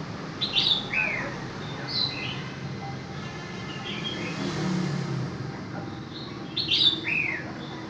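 A bird singing in short high chirps and a falling whistled note, repeating much the same phrase about six seconds later, over a steady low rumble.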